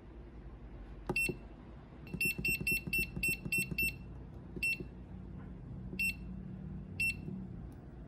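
Hyperion EOS 0606i hobby battery charger giving short, high keypress beeps as its buttons are pressed to set it to NiCd charging: one beep with a click of the button, then a quick run of about seven beeps at about four a second, then three single beeps about a second apart.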